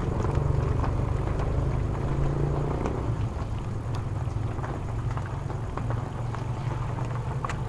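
Steady low rumble with scattered small clicks and rustles as fish are picked out of a wet cast net by hand.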